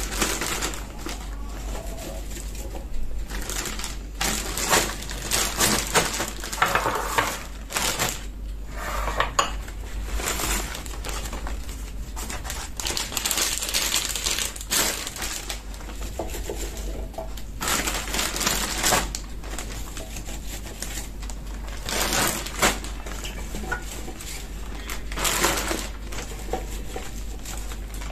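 Garlic cloves clattering against a stainless steel pot as they are scooped out by hand, and plastic sandwich bags rustling as they are opened and filled, in irregular bursts.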